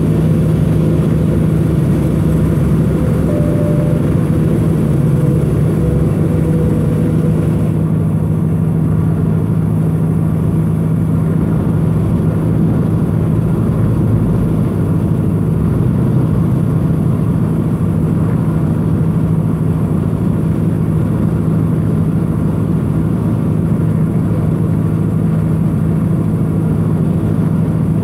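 A truck's engine droning steadily, heard from inside the cab while driving, with road noise underneath and no change in pitch.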